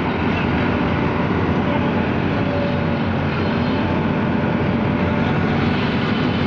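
Heavy machinery engine running: a dense, steady mechanical noise whose low pitch wavers slightly.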